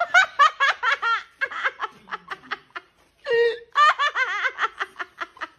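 Hearty human laughter in quick repeated bursts, breaking off briefly about three seconds in and then starting again.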